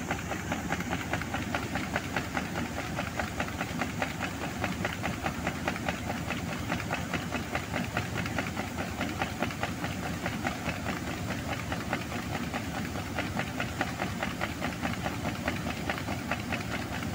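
Combine harvester running while its unloading auger pours winter barley into a trailer: a steady, dense mechanical noise with a fast rattle.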